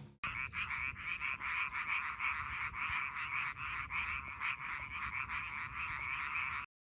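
Frogs calling in a dense chorus of rapid, repeated croaks, starting abruptly and cutting off suddenly near the end.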